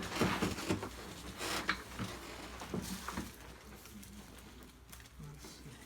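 Soft rustling and a few faint knocks of a person turning over onto his back on a chiropractic treatment table, dying down after about three seconds, over a faint steady hum.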